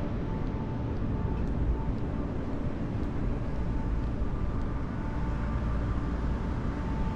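Outdoor street ambience: a steady low rumble, with a faint thin whine that comes and goes.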